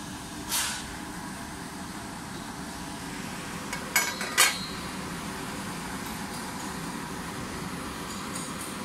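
Shrink-wrap heat tunnel running with a steady hum, with a brief hiss about half a second in and two sharp clacks around four seconds in.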